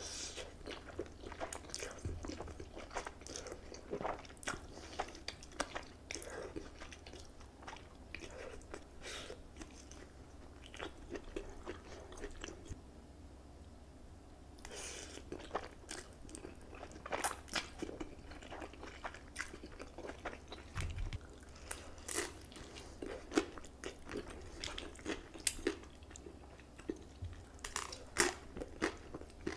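Close-miked eating sounds from a person eating stew-type Buldak noodles: scattered wet chewing clicks, bites and small crunches, with a brief quieter lull near the middle.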